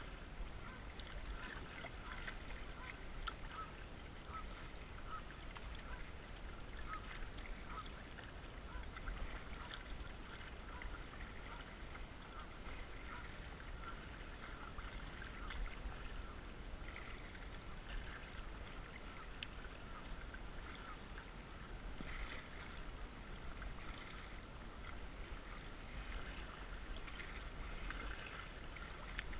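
Muddy creek water lapping and splashing against a plastic kayak hull, with small scattered splashes from the paddle as the kayak moves downstream, over a steady low rumble.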